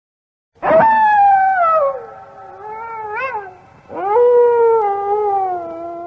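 Wolf howling: two long howls, the first sliding down in pitch, the second rising quickly and then held with a slow fall.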